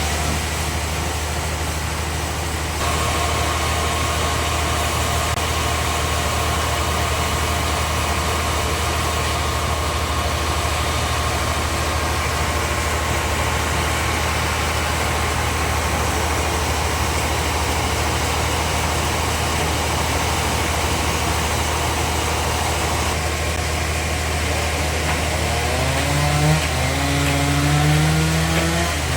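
Band sawmill machinery running steadily with a low drone and a steady higher whine for much of the time. Near the end, a pitched sound that wavers up and down in pitch comes in over the machine.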